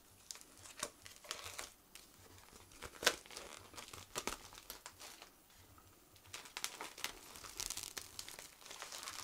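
Clear cellophane wrap being torn and peeled off a cigar box, crinkling irregularly, with sharper crackles now and then.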